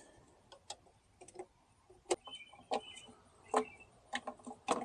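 Scattered plastic clicks and light handling noises from new LED bulbs being twisted into their sockets in a headlight assembly, with a brief squeak about two seconds in.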